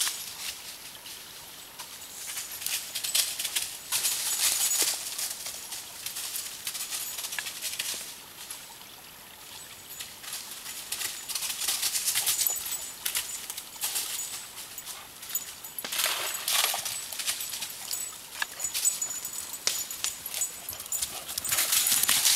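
Dry fallen leaves crunching and rustling under running feet, in uneven bursts, with quieter spells about two seconds and nine seconds in.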